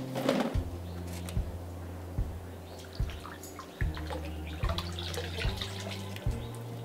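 Soft background music with a steady low beat. A woven bamboo tray rustles briefly at the start, then water drips and splashes lightly as a salted grass carp is handled and lifted out of its brine.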